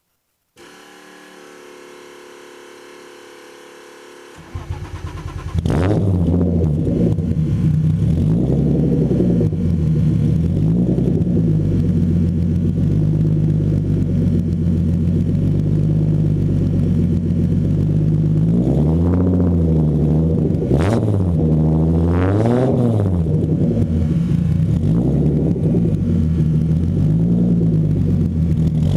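Turbocharged BMW E34 525 inline-six exhaust, very close to the turn-down: after a faint steady hum, the engine is cranked and catches about four seconds in, then idles loudly. It is blipped a few times in the second half, the pitch rising and falling with each blip.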